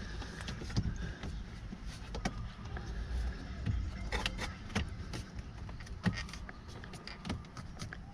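Scattered light clicks and knocks of plastic parts and wiring being handled as an Auxbeam switch panel is pushed into its mount, over a low rumble.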